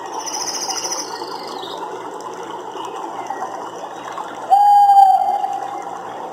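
Nature soundscape: a steady chorus of calling animals, with a rapid high trill in the first second and a single loud, clear, held call about four and a half seconds in that lasts about a second and a half.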